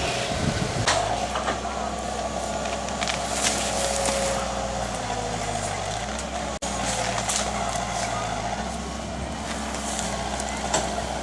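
A large vehicle's engine running steadily, a low hum, with faint voices and a few sharp clicks over it. The sound drops out for an instant about halfway through.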